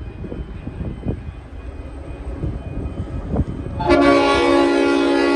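Horn of an approaching freight train's lead G-class diesel locomotive sounding one long blast of about a second and a half, starting about four seconds in, over a low rumbling noise.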